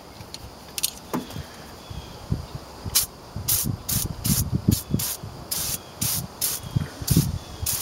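Aerosol can of Gunk heavy-duty engine degreaser spraying in a rapid series of short hissing spurts, about ten of them starting some three seconds in.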